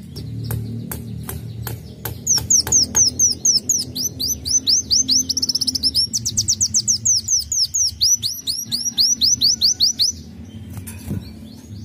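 Caged sunbird singing. A few sharp clicking notes lead into a loud run of high, sharply falling whistled notes, several a second. The run speeds into a fast trill a few seconds in, then slows again and stops about ten seconds in.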